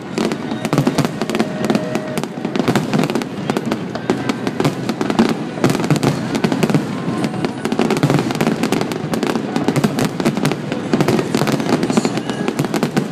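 Fireworks display at full intensity: a dense barrage of aerial shells bursting in rapid, overlapping bangs.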